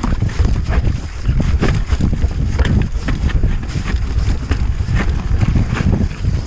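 Wind buffeting the camera microphone while a mountain bike descends a dirt forest trail at speed, with tyres rumbling over the ground and frequent clattering knocks from the bike over bumps and roots.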